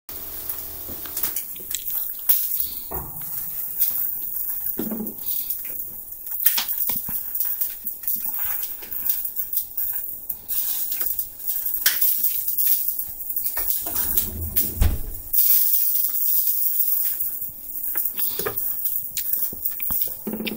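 A cat moving about in an open dishwasher: paws on the plastic door and the wire racks rattling and clinking as it climbs in, heard as scattered clicks, taps and a few dull thumps.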